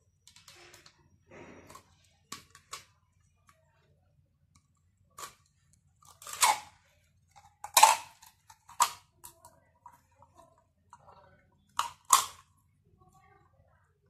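Handling noise from a silicone cold shrink tube and plastic parts being picked up and set down on a tabletop. Scattered clicks, knocks and rustles, with the loudest knocks about six and a half, eight and twelve seconds in.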